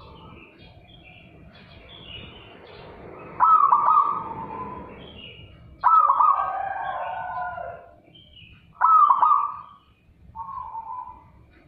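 Zebra dove (perkutut) singing: a loud, clear run of staccato cooing notes about three seconds in, repeated roughly every two to three seconds, the last phrase fainter. Softer high-pitched chirping runs behind it.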